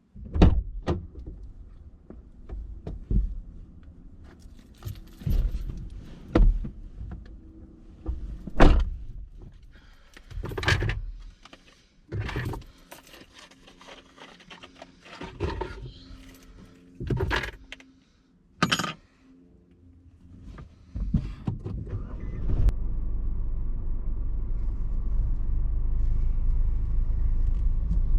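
Keys jangling and scattered knocks and clunks of someone handling things in a car. About 21 seconds in, the car's engine starts and settles into a steady low running rumble.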